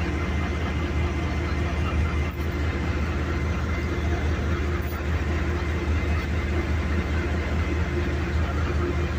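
A diesel locomotive idling at a distance: a steady low rumble with a faint constant hum that does not change.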